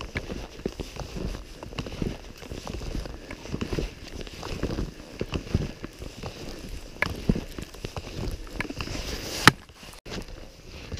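Ski touring uphill in fresh snow: skis shuffling forward on climbing skins, with an irregular patter of pole plants and binding knocks and clothing rustling close to the camera. One sharp, louder click about nine and a half seconds in.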